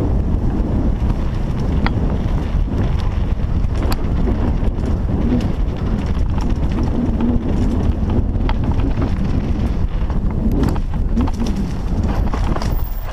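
Wind buffeting a helmet-mounted camera's microphone while a mountain bike rattles down a dirt singletrack, with scattered sharp clicks and knocks from the bike over rough ground.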